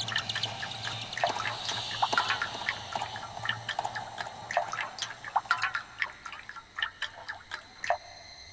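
Water dripping: irregular plinking drops of differing pitch, thinning out toward the end, over a low hum that fades. Near the end a faint steady high tone begins.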